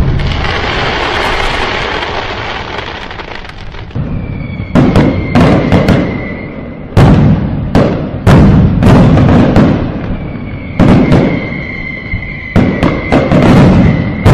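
Loud firework bangs: a long fading rumble through the first few seconds, then about a dozen bangs in quick clusters from about five seconds in, each trailing off in a rumble.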